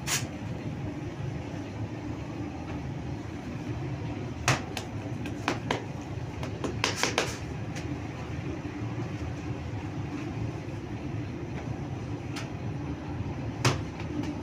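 Steady low hum of bakery machinery, with a few sharp slaps as the baker's hands pat and flip dough on the floured table: once at the start, several times in the middle and once near the end.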